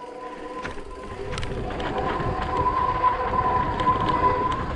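Mountain bike's rear disc brake squealing in a steady high tone, getting louder about two seconds in, over the rumble of tyres rolling on a dirt trail. The rider takes the squeal as a sign that the rear brake pads are worn out.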